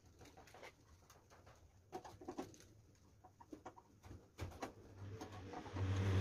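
Scattered light clicks and taps of metal parts being handled as a control cable and linkage are fitted at a go-kart's steering column. Near the end a low hum with a rushing noise swells up and becomes the loudest sound.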